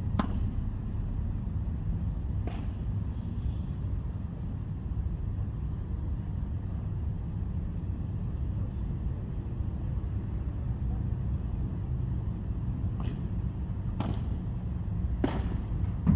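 Padel ball struck by rackets: a few sharp pops, two early on and then a run of four about a second apart near the end, as in a rally. Under them is a steady low rumble and a constant high-pitched whine.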